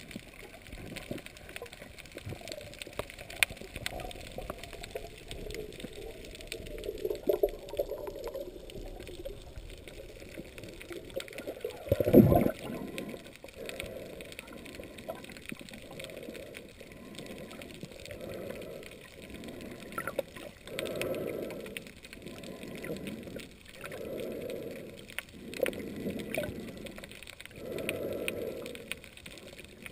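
Underwater ambience of water moving over a diver's camera housing during a freedive ascent. There is one sharp knock about twelve seconds in. In the second half, a regular swelling whoosh comes about every one and a half seconds, in time with fin kicks.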